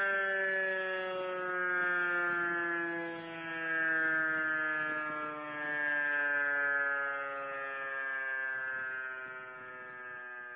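Electromechanical E57 civil-defence siren winding down at the end of a test alarm: its tone slides slowly and steadily lower and fades.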